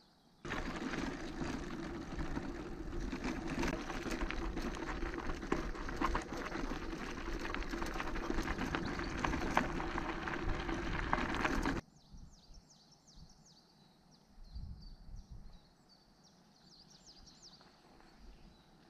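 Bicycle tyres rolling over a loose gravel forest road, with a steady crunching rush, small rattles and wind on a bike-mounted camera. It cuts off sharply about twelve seconds in, leaving quiet woodland with small birds chirping.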